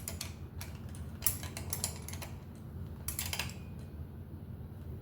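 Light metallic clicks and ticks in a few short clusters from handling a Shimano cantilever brake's pad and arm hardware while the pad toe is set, over a steady low hum.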